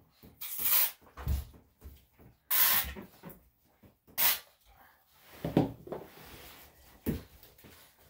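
Plastic squeeze bottle squirting shampoo onto a wet Yorkshire Terrier puppy in a bathtub: three short squirts in the first half. Then softer sounds of hands lathering the wet coat.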